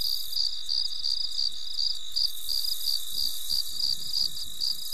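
Crickets chirping: a steady high trill under regular high chirps about four a second.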